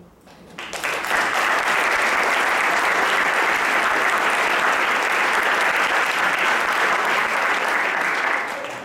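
Audience applauding, starting just under a second in, holding steady, and dying away near the end.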